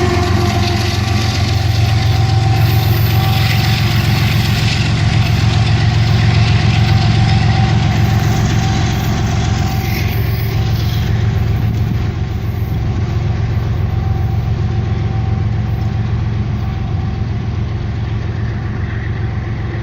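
Rear DPU diesel locomotive's engine rumbling with a steady deep hum. The higher sounds thin out about halfway through and the rumble slowly eases toward the end.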